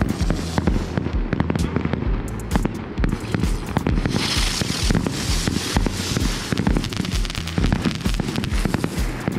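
Small 'Sun Flower' spinning novelty fireworks going off, with dense crackling and rapid sharp pops. A rushing hiss swells about four seconds in and lasts a couple of seconds.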